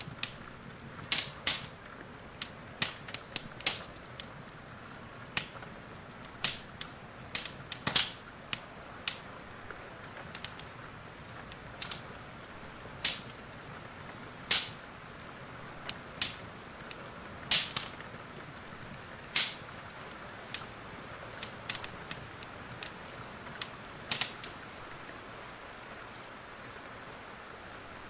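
Wood fire in a fireplace crackling, with sharp irregular pops every second or two, over a steady hiss of rain.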